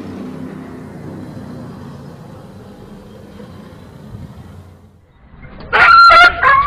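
Street traffic passing, a steady low rumble. About six seconds in, a dog starts yelping in loud, high, broken cries.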